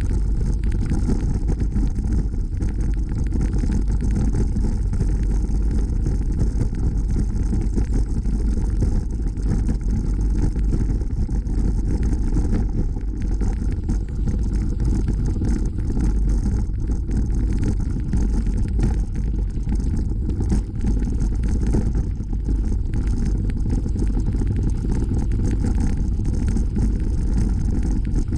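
Steady low rumble of a bicycle riding along a packed gravel trail: wind buffeting the bike-mounted camera's microphone, mixed with tyre noise on the trail surface.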